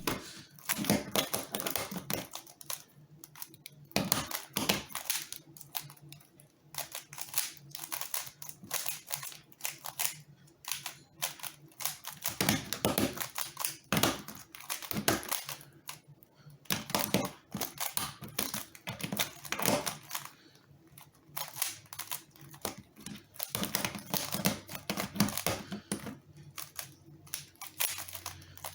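A Rubik's cube being solved one-handed: fast runs of plastic clicks and clacks as its layers are turned, broken by short pauses.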